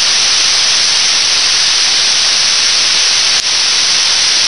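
Loud, steady hiss of an RTL-SDR receiver's FM audio with no station coming through, the open-squelch noise of an empty 2-metre channel. A brief click breaks it about three and a half seconds in.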